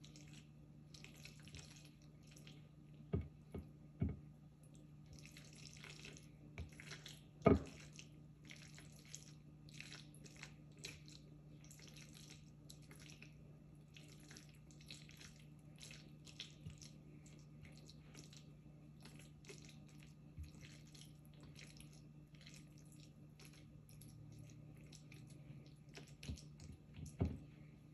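A spoon stirring a seasoned mixture in a bowl: repeated short scraping strokes in quick runs, with a few knocks of the spoon against the bowl, the loudest about seven and a half seconds in.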